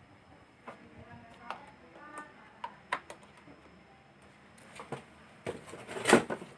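Scattered light clicks and taps of handling at a workbench, with a louder short rustle or scrape about six seconds in.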